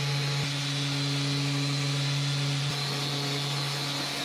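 Random orbital sander running steadily against solid red oak, with the rushing hiss of a dust extractor drawing through its hose.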